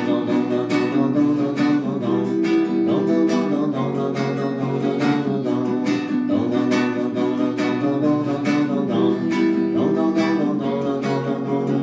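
Instrumental break of a dance song: strummed guitar and held chords over a steady beat, with the chords changing every few seconds.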